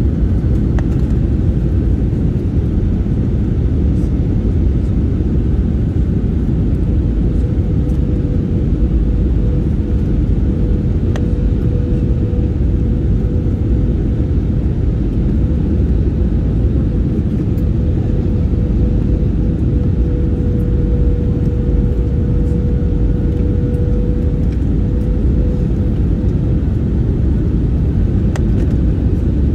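Steady cabin noise inside an Airbus A320 airliner in flight: a deep rumble of jet engines and airflow, with a steady mid-pitched hum through it that grows a little stronger about twenty seconds in.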